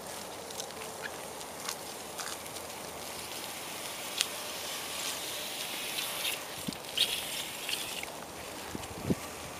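Bicycle tyres rolling over cracked, debris-strewn asphalt: a steady hiss with scattered clicks and crackles as the bike rattles over bumps and loose fragments.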